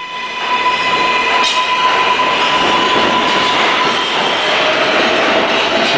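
New York City subway train running through a tunnel: a loud, steady rush of wheel and rail noise with a high steady squeal, which is replaced by a lower-pitched tone about four seconds in.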